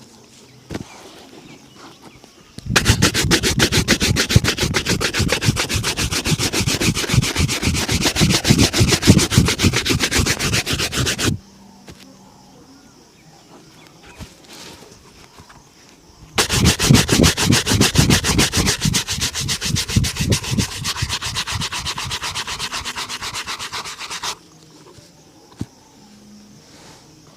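A shoe being rubbed and buffed with rapid, even back-and-forth strokes, in two long bouts of about eight seconds each with a pause between.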